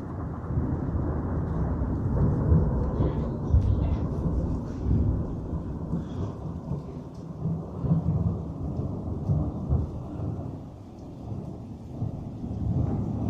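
Thunder rumbling and rolling in long waves, with swells about 2.5 and 8 seconds in, easing off around 11 seconds and building again near the end.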